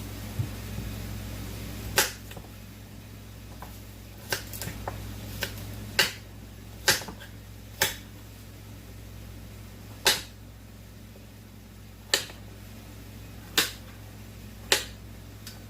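Broccoli florets being snapped off the stalk by hand: about nine sharp snaps, one every one to two seconds, over a steady low hum.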